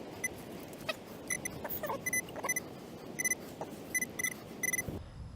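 Metal detector beeping on a buried target: about a dozen short electronic beeps, all at the same high pitch, coming irregularly and sometimes in quick doubles, over a low rustle.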